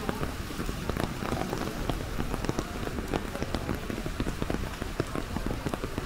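Rain falling on an umbrella held overhead: many quick, irregular raindrop taps over a steady hiss of rain.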